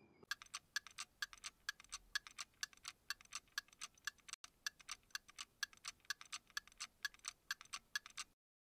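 Ticking clock sound effect, faint, with fast even ticks about four a second that stop suddenly near the end: a thinking-time countdown while the learner tries to name the buildings.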